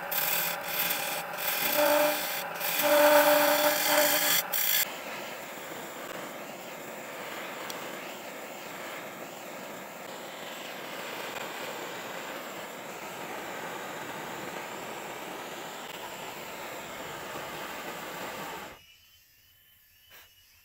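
A woodturning tool scraping against spinning wood on a lathe, a rough rasping cut with a short squealing tone and sharp catches, stopping about five seconds in. Then a blowtorch flame hisses steadily while it scorches the wood, cutting off a couple of seconds before the end.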